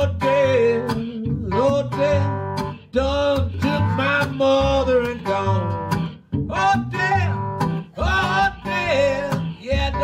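Country blues band playing: acoustic guitar picking over a washtub bass line, with a wavering lead melody that bends in pitch.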